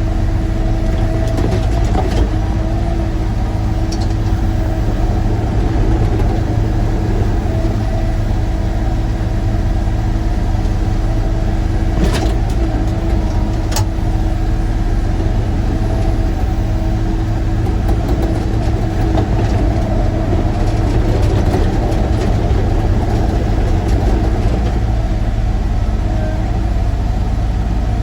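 Sany excavator's diesel engine running steadily while working, with a constant low drone and a steady tone over it. Two sharp knocks sound near the middle.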